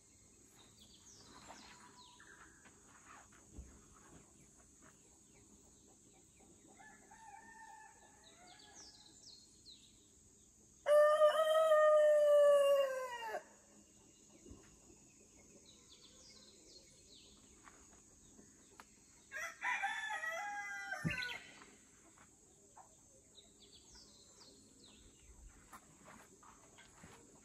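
Rooster crowing twice: one long crow about eleven seconds in that drops in pitch at its end, and a rougher second crow later on. Behind it run a steady high insect drone and scattered small bird chirps.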